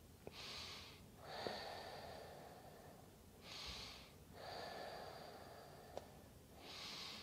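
A woman breathing slowly and deeply while holding a yoga forward fold, faint: short inhales of under a second alternate with long exhales of about two seconds, three breaths in and two out.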